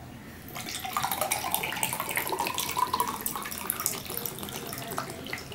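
Water pouring from a plastic bottle into a drinking glass, starting about half a second in and running steadily.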